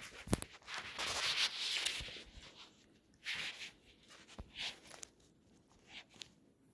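Handling noise on a phone's microphone as the phone is put down on the floor: a knock, then rubbing against the mic for about a second, followed by a few soft scattered scuffs.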